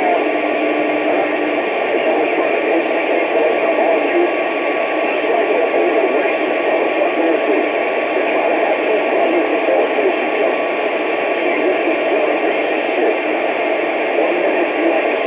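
Steady hiss of static from a CB radio receiver's speaker, even and unbroken, with the narrow, tinny range of a radio channel carrying no voice.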